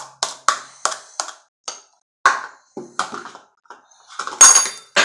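Mixing bowl and utensil being handled as slime is taken out: a run of quick knocks and clicks, about three a second, then a louder clatter near the end.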